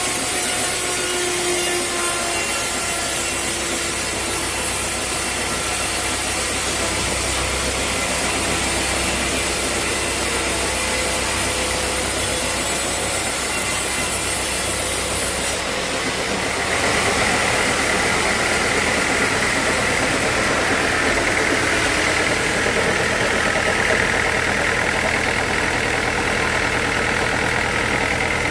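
Sawmill saw running steadily through a dense old teak log. About halfway through the sound shifts: the low hum drops away and a higher, brighter steady tone takes over.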